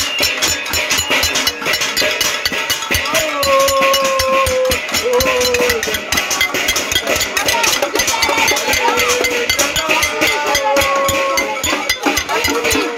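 Many saucepans and pots being banged together in a pot-banging protest (casserolade): a dense, continuous clatter of metal strikes. Voices call out over it.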